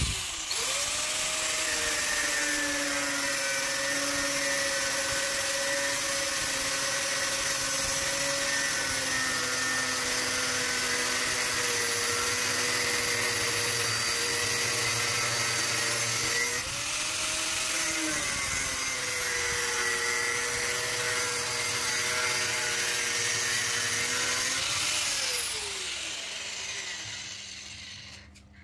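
Angle grinder with a cutting disc switched on and cutting through the steel shell of an AC compressor: a loud steady whine over a grinding hiss. Its pitch jumps briefly a little past halfway, and near the end the grinder is switched off and the whine falls away as the disc spins down.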